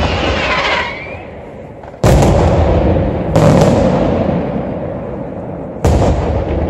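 Aerial firework shells bursting overhead: three loud booms, about two, three and a half and six seconds in, each followed by a long rolling echo that dies away. A hiss with a short rising whistle sounds in the first second.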